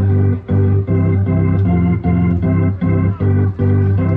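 Organ music: a tune of short held notes with brief breaks between them, about two or three notes a second.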